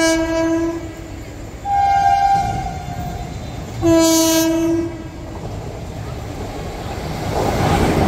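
Indian Railways locomotive horn on the Puducherry Express sounding three blasts of about a second each, the middle one at a higher pitch, as the train nears the station without stopping. Near the end the rush and rumble of the train running through the platform at speed builds up loud.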